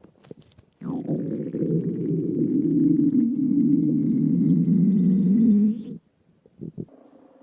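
Human stomach growling from an upset stomach: one long low rumble of about five seconds, beginning about a second in with a short falling sweep and cutting off suddenly. A few faint clicks follow near the end.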